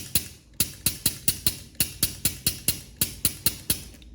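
Bostitch SB-125BN pneumatic nailer fired over and over, about four sharp clicks a second. Each shot only spits out air and doesn't fully fire, a fault the owner puts down to the head air valve.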